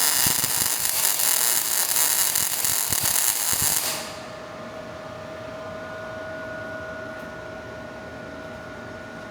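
MIG welding arc from an ARCPEX MIG200 welder crackling steadily as a bead is laid. About four seconds in it cuts off suddenly, leaving the machine's quieter steady hum with a faint whine.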